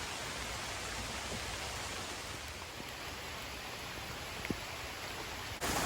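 Steady hiss of light rain falling, with a single soft tap about four and a half seconds in.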